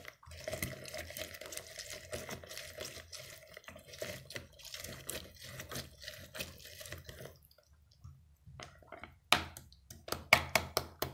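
Half a lemon twisted and pressed on a plastic hand citrus juicer: rubbing and squelching of the lemon on the ribbed reamer with small plastic clicks for about seven seconds. Near the end, a few sharp plastic clicks as the reamer top is lifted off the juice cup.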